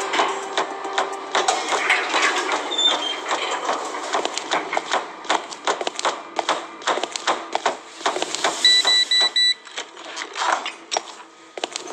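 Footsteps in a building's hallway and stairwell, a quick run of knocks and scuffs. About three-quarters of the way through, a digital door lock's keypad beeps four times as a code is entered.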